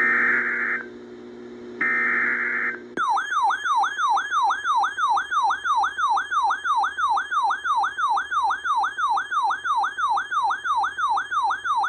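Emergency Alert System tornado-warning alert: two short screeching bursts of digital header data, then a loud siren-like attention tone that sweeps rapidly up and down, about three times a second.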